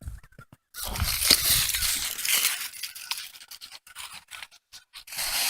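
Paper crinkling and tearing in two bursts, the second near the end, with scattered crackles in between, as a beagle's scrap of paper is chewed and pulled from its mouth.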